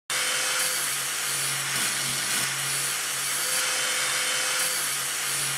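Angle grinder with an abrasive wheel running steadily against the face of a cast-iron car brake disc rotor, a continuous grinding hiss over the motor's hum, resurfacing the rusty disc.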